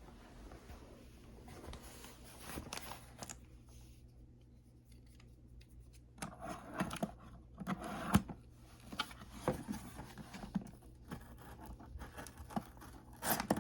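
A cardboard box being opened by hand: tape and cardboard scratching, scraping and tearing, soft at first and then louder and uneven, with a couple of sharp knocks as the box is handled.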